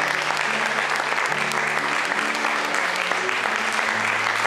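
Congregation applauding steadily, with music underneath whose low notes are held and change every second or so.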